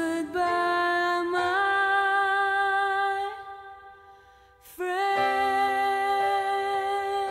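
Background music: a slow, tender song with long held sung notes. The first phrase fades out a little past the middle and a new one starts about a second later.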